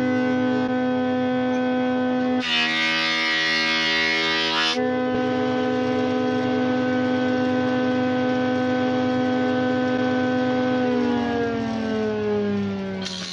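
Thickness planer running with a steady high whine, with a harsh rush of cutting noise for about two seconds a couple of seconds in. About eleven seconds in the whine starts falling in pitch and getting quieter as the machine winds down.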